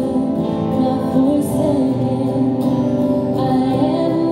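Worship band music: voices singing over sustained instrumental chords, steady and full throughout.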